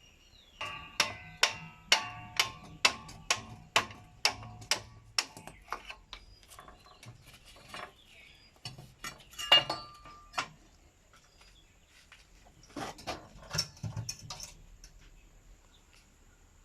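Metal being struck repeatedly, about two sharp ringing strikes a second for several seconds, typical of a hammer on a steel part. Scattered clinks follow, with a single louder knock midway and a short cluster of knocks near the end.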